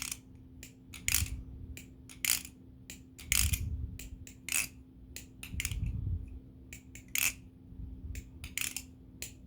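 NRB Konig balisong being flipped: a run of irregular sharp metallic clicks and clacks as the handles and blade swing and strike together, a few with a duller thud. This is a sound its owner calls unique but not the best.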